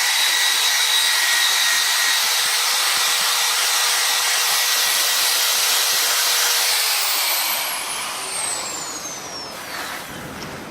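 A high-speed rotary tool running with a loud, steady hiss, then switched off about seven seconds in and winding down with a falling whine.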